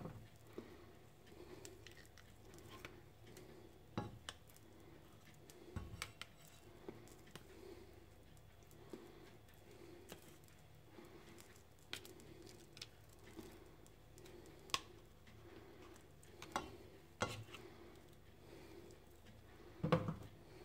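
Metal spoon clinking and scraping against a stainless steel pot and a tin can as food is spooned into the pot: a scattered handful of sharp clinks and taps, the loudest near the end, over a faint low hum.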